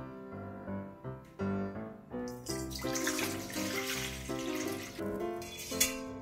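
Water poured into a stainless steel mixing bowl, splashing and running for about three seconds from about two seconds in, over light piano background music.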